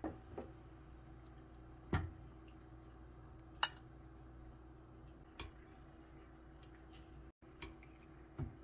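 A metal spoon clinks and knocks against a stainless steel pot and a ceramic plate while food and broth are served. There are about seven scattered light knocks, with one sharp, bright clink about three and a half seconds in, over a faint steady hum.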